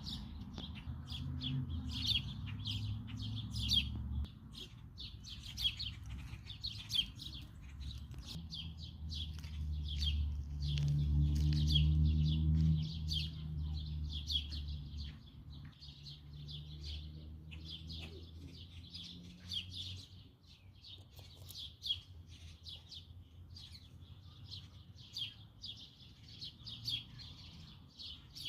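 Many small songbirds chirping, with quick repeated tweets overlapping throughout. Underneath runs a low sustained drone that shifts in pitch every few seconds and swells around the middle.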